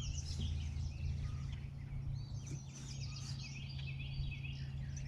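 Several songbirds chirping and trilling over the steady low hum of the trolling boat's motor.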